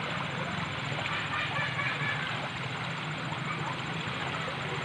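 Swift, muddy river water rushing past the bank, a steady, even noise.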